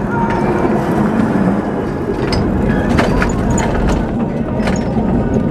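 Lisbon tram running along its rails, heard from on board: a steady low rumble with rattling and a few sharp clicks from the wheels and car body.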